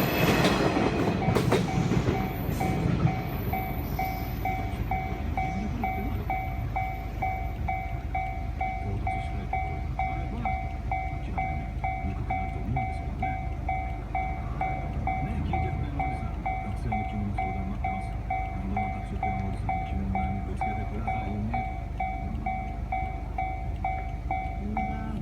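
Japanese level-crossing warning bell ringing on and on in an even, repeating rhythm. A train passes loudly over the first couple of seconds, then a low rail rumble carries on under the bell.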